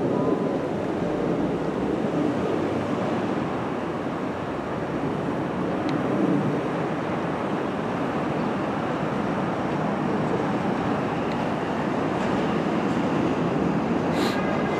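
Bombardier R62A subway train running toward the listener on elevated track as it crosses over switches from the local to the center express track: a steady, even rolling noise of wheels on rail, with a brief sharp burst of clatter near the end.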